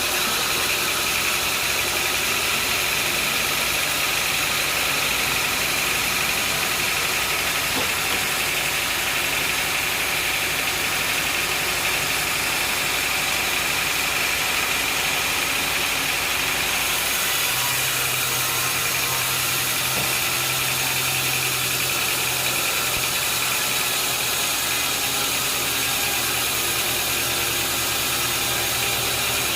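Sawmill machinery engine running steadily, a continuous mechanical drone; about seventeen seconds in its tone shifts as a deeper hum comes in.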